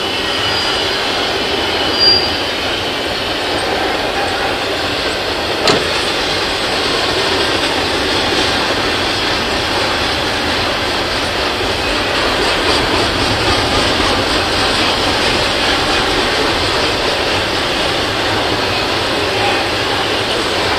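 Double-stack intermodal freight cars rolling past: the steady noise of steel wheels running on rail, with a single sharp click about six seconds in.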